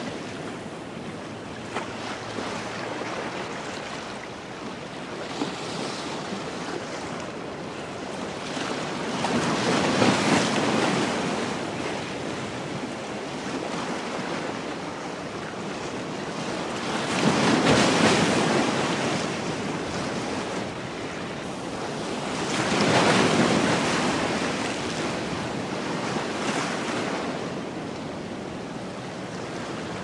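Sea surf breaking and washing around a rock: a steady rush of water that surges louder three times, about a third of the way in, past the middle, and again a few seconds later.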